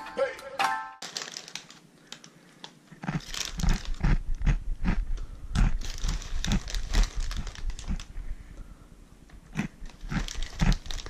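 Plastic zip-top sandwich bag crinkling as hands handle it, in irregular crackles mixed with dull knocks, starting about three seconds in.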